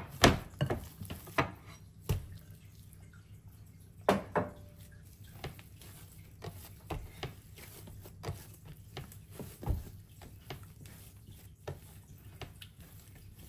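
Soft bread dough enriched with butter and shortening being kneaded by hand, making many short sticky clicks, with a few louder knocks as it is lifted from a glass bowl and pressed on a board.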